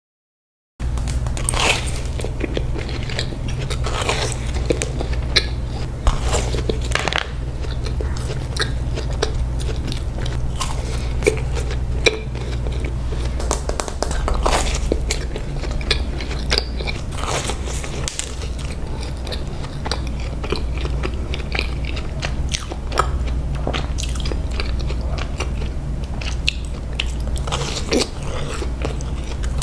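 Close-miked eating of donuts: repeated biting and chewing with frequent short crunches and clicks, over a steady low hum. It starts about a second in after a moment of silence.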